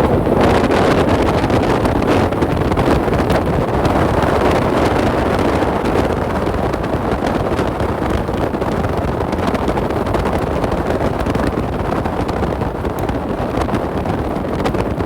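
Off-road vehicle driving a dirt trail: a steady loud rush of engine and tyre noise, with wind buffeting the microphone.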